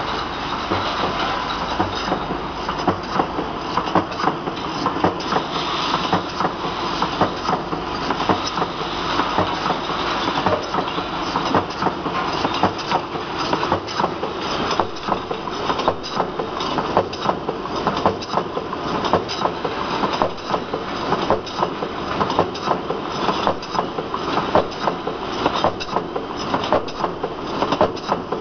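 Automatic round-surface screen printing machine running, with a steady mechanical noise and quick, irregular clattering as small cans are fed from the hopper and knock against one another along the conveyor.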